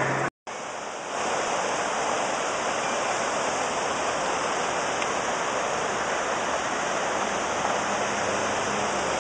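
A muddy, flood-high brook rushing over rocks in white-water rapids: a steady, even rush of water that comes up a little louder about a second in.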